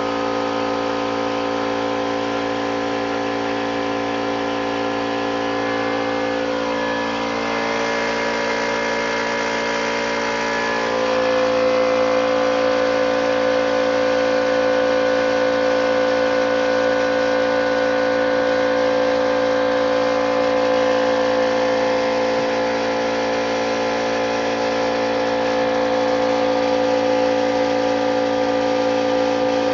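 Pneumatic 1/4-inch die grinder running steadily while grinding down a weld bump; its pitch wavers and shifts about a third of the way through, and it gets a little louder just after.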